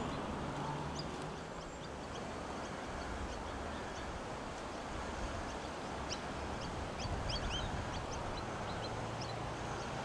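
Wind rumbling steadily on the microphone, with small birds chirping in many short, high calls, most of them in the second half.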